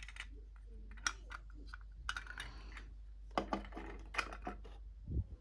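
Small plastic toy pieces clicking and tapping against each other as they are handled, in irregular clusters, with a short rustle about two seconds in and a low thud near the end.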